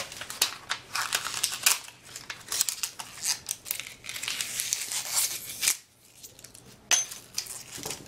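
Quick snips and crinkles of thin plastic as a 3.5-inch floppy disk is cut and broken apart with scissors and by hand. They go on fast and close together, stop briefly near the end, then one sharp click is followed by a few scattered crackles.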